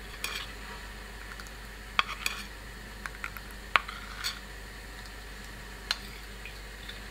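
Metal spoon stirring a thin flour-and-water slurry in a stainless-steel bowl, with scattered sharp clinks as the spoon hits the bowl's sides.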